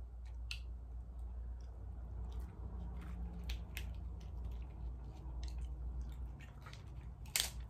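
A person chewing and biting into battered fried lobster tail close to the microphone: crunching and wet mouth smacks, heard as many short, irregular clicks, with a sharper smack near the end.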